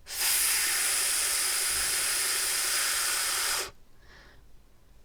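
A woman's voice holding the letter F's sound, a long steady voiceless "ffff" hiss (the /f/ phoneme) of about three and a half seconds that stops suddenly.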